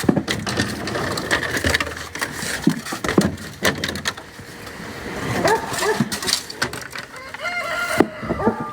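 Rustling and knocking of peaches being picked and handled, with a few short whining animal calls in the second half.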